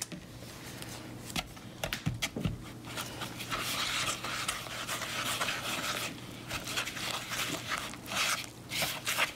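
Spatula stirring thick cornbread batter in a mixing bowl: repeated scraping and squelching strokes, with a few sharp knocks of the utensil against the bowl a couple of seconds in.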